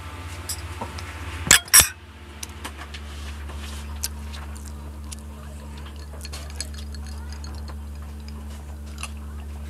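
Two sharp clinks about a second and a half in as a small plate with a metal fork on it is set down on the table, followed by scattered faint clicks of cutlery and glass, over a steady low hum.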